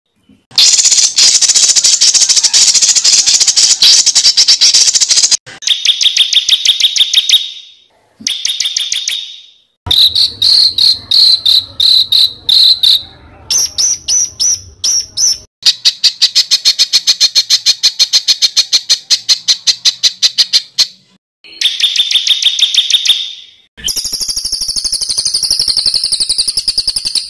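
Spliced recordings of songbirds giving rapid-fire, harsh repeated notes, the "tembakan" phrases of a masteran tape for competition birds. About eight short snippets follow one another, each cut off abruptly by a silent gap. One near the middle is a fast, even trill, and the last has wavering whistles.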